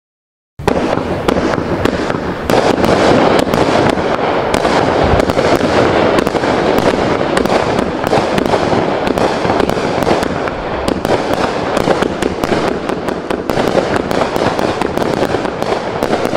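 Vivid 'Neon Nightmare' 36-shot 500g fireworks cake firing, starting about half a second in: a continuous, dense run of sharp pops and bursts without a break.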